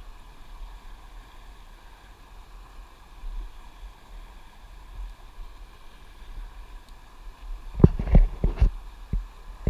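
Steady rush of river water around a person sitting in it. A few sharp knocks or splashes come close together about eight seconds in, and one more just after.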